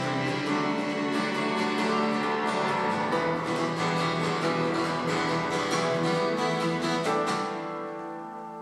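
Acoustic guitar strummed in a steady rhythm, with violin and cello playing held notes beneath it in an instrumental passage. About seven seconds in, the strumming stops and the strings fade away.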